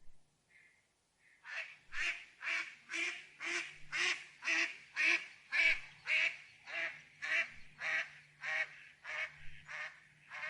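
Duck quacking in a long, even series of about two quacks a second, beginning about a second and a half in after a couple of faint short calls.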